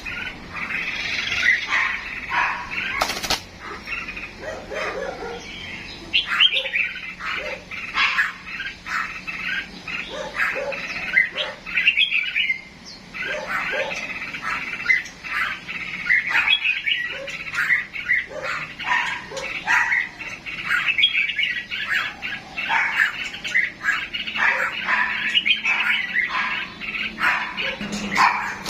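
Several cage birds chirping and twittering together in a dense, continuous stream of short, overlapping calls.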